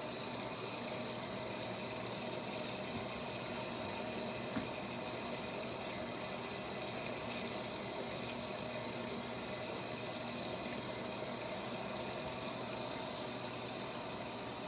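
Whirlpool Duet front-load washer running a wash cycle, with a steady sound of water moving in the drum. A small tick comes about four and a half seconds in.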